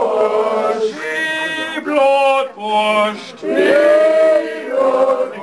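A man's voice singing in a chant, short phrases repeated over and over.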